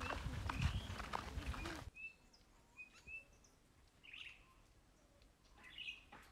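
Footsteps and rustling of several people walking on a dry dirt path, stopping abruptly about two seconds in. Then near quiet with a few faint, short, high bird chirps.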